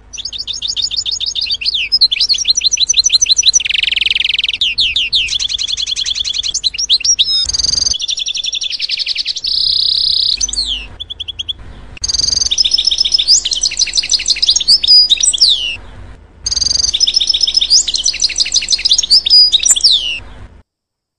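Bay-headed tanager singing: rapid high-pitched chirps and trills in three runs, with short breaks near the middle and about three quarters through.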